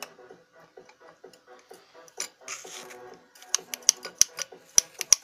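Irregular metallic clicks and knocks from a piston and connecting rod being moved by hand inside an opened engine. The clicks come sparsely at first, then faster and sharper in the last second and a half.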